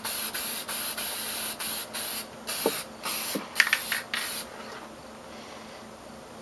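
Aerosol can of clear coat spraying in a quick series of short hisses, about two a second, that stop about four and a half seconds in.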